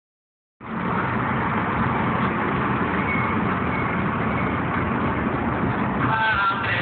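Steady engine and road noise of a Mazda car heard from inside the cabin, starting about half a second in. Radio music comes in faintly near the end.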